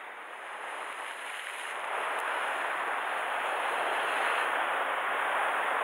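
Sea surf washing against the rocks below, a steady hiss of breaking water that grows louder about two seconds in.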